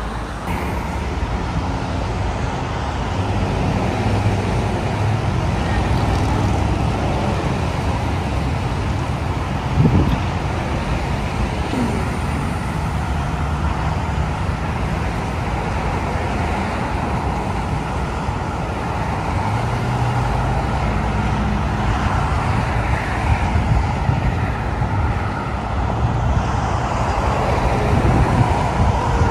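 Steady freeway traffic noise mixed with the low, steady running of heavy rotator tow trucks' diesel engines. There is a brief knock about ten seconds in.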